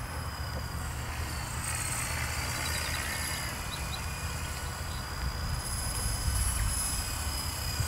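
450-size electric RC helicopter flying at a distance: a thin high whine from its motor and rotor that wavers slightly in pitch, over a steady low rumble.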